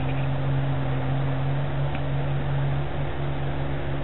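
Off-road 4x4's engine idling with a steady low hum, heard from the vehicle carrying the camera.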